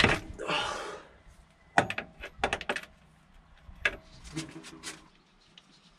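Socket ratchet wrench working a transmission drain plug: a sharp metallic crack right at the start, then scattered short clicks and knocks as the ratchet is worked.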